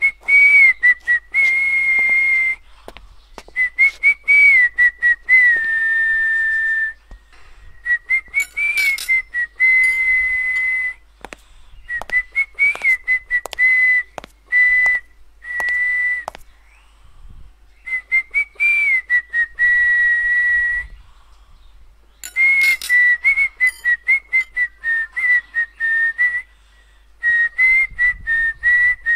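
A person whistling a tune in phrases of a few seconds with short breaths between, the pitch wavering a little around one high note, with sharp clicks and knocks scattered through it.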